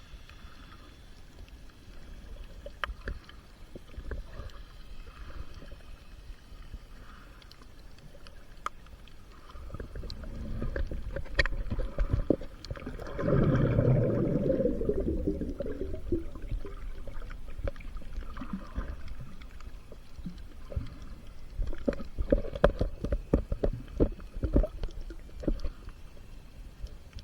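Water sloshing and gurgling, with scattered knocks and a low rumble; a louder bubbling gurgle swells up about halfway through and fades after a few seconds.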